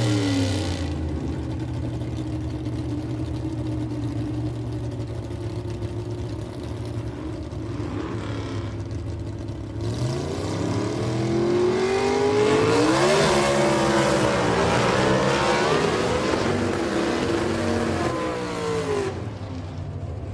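Motorcycle engine settling from a rev to a steady idle, then revved several times from about halfway, the pitch rising and falling repeatedly, before dropping back to idle near the end.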